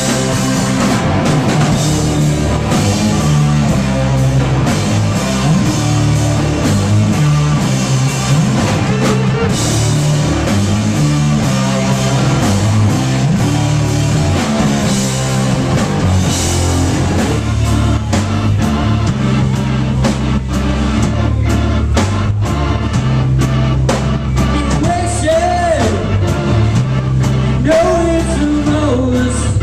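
Live rock band playing: drum kit, guitar and bass, with a singer's voice coming in near the end.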